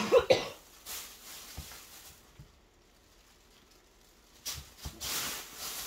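Handling noises as a doll is put down and the next one picked up: a few sharp knocks and clatters at the start, then a rustle with a few clicks near the end.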